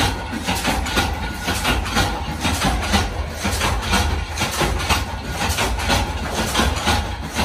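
Factory machinery running: a steady, rhythmic clatter over a low drone.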